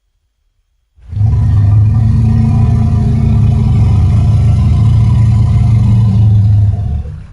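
Stegosaurus creature sound effect built from elephant-like sounds: one long, low, steady rumbling call. It starts about a second in and lasts about six seconds.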